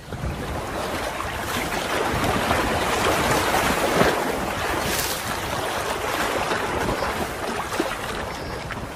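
Strong wind blowing across the microphone, a steady rushing noise.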